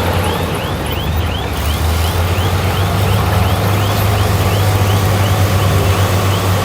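Komatsu crawler bulldozer's diesel engine running steadily under load, with a high squeak repeating about two to three times a second.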